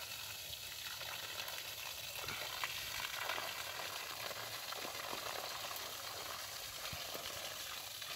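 Water from a garden hose splashing onto dense leafy plants: a steady hiss with a few light taps.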